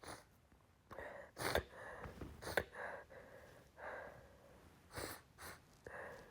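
A woman sneezing several times in rapid succession, with gasping breaths in between; the sharpest sneezes come about one and a half and two and a half seconds in.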